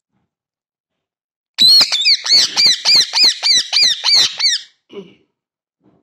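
Rose-ringed parakeet giving a rapid series of about ten harsh, repeated squawks, roughly three a second, starting about a second and a half in and stopping after about three seconds.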